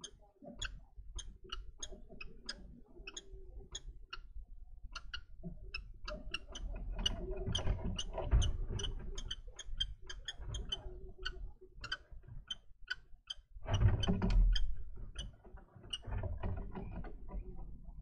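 Common kestrels in a wooden nest box: a run of short ticking calls, about two or three a second, the male's luring call at the nest scrape. Shuffling and thumps on the gravel floor come between them, loudest about 8 s and 14 s in, as the birds move about and one leaves.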